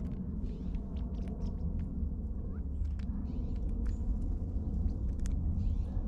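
Black-billed magpie pecking at peanuts and seed in a tray feeder: a scattered run of sharp taps and clicks over a steady low rumble.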